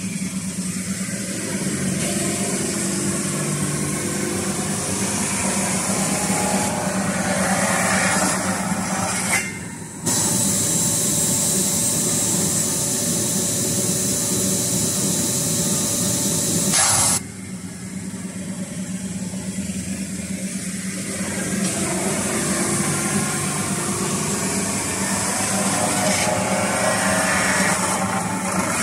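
CNC metal spinning machine forming a sheet-metal fan impeller shroud: the spindle turns the blank on its mandrel while the forming roller presses along it. It gives a steady machine hum under a high hiss that builds during each pass, with sharp drops about ten and seventeen seconds in.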